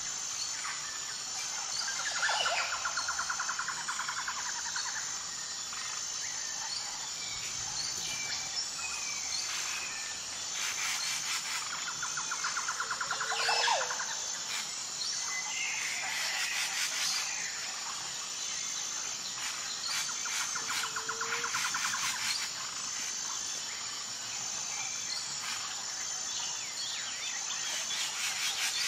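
Several wild birds calling: chirps and rapid trills, with a short low rising note repeated about every eight seconds. A faint high pulsing tone runs underneath.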